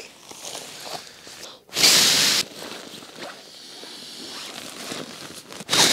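Nylon rustling as a Nemo sleeping pad is pulled out of its stuff sack and unrolled, with two short, loud swishes of fabric: one about two seconds in and one at the end.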